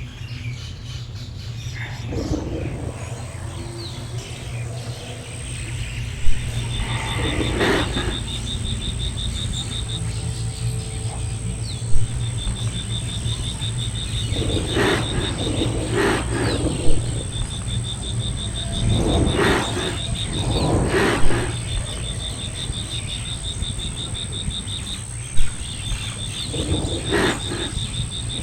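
Animal sounds: a low call repeated every few seconds over a steady low rumble. An insect trills in short stretches again and again, and there are a few sharp knocks.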